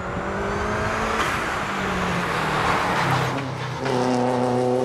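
Subaru Impreza WRX STI's turbocharged flat-four engine at race pace, its note falling over the first three seconds as it comes into a bend. About four seconds in, it gives a louder, steady note as the car pulls out of the corner.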